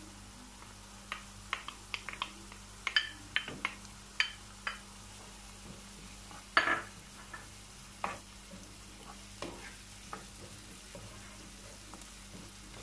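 A wooden spoon stirring chopped onion and green pepper in a nonstick frying pan, tapping and scraping against the pan at irregular moments, over a faint sizzle of the vegetables frying in butter and oil. The loudest tap comes about six and a half seconds in.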